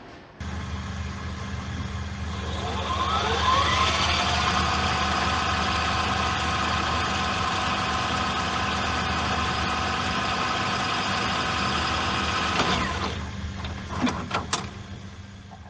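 Tape-rewind sound effect: a low motor hum starts, then a whirring tone rises in pitch over a couple of seconds and holds steady. Near the end it winds down, followed by a few sharp clicks.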